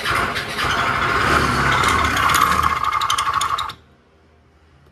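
Kymco Racing S150 scooter's single-cylinder engine running harshly with a loud clattering mechanical noise, then cutting off suddenly near the end as it stalls. The mechanic likens it to a scuffed, partly seizing cylinder and piston.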